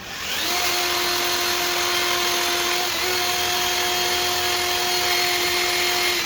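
Power tool motor spinning up, then running at a steady speed with a steady whine over a hiss. Its speed dips briefly about halfway through, and it winds down at the end.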